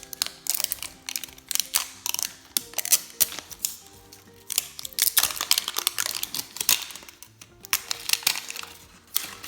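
Plastic packaging of a Unicorn Squad 5 Surprise toy being torn and crinkled open by hand: an irregular run of sharp crackles, thickest about five to seven seconds in.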